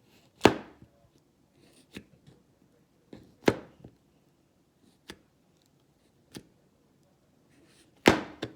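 Store-bought slime being pressed and pulled by hand for ASMR, giving about six sharp wet pops, one every second or two, the loudest about half a second in, in the middle and near the end.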